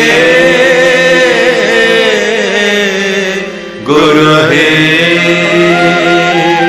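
Devotional Vaishnava chant: slow singing with long held, wavering notes over a steady drone accompaniment. One phrase tails off and a new one starts about four seconds in.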